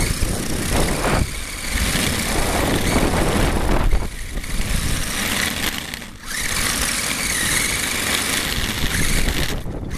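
HSP radio-controlled car driving fast over asphalt, heard close up from on the car: a continuous rush of motor, drivetrain, tyre and wind noise that dips briefly twice near the middle.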